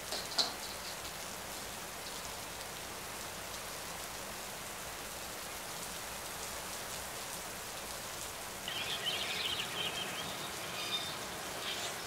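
Steady rain falling, an even hiss, with a few short high bird chirps about nine seconds in.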